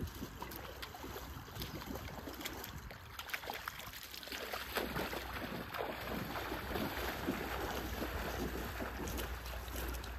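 Water splashing and sloshing, growing busier about four seconds in, over a low wind rumble on the microphone.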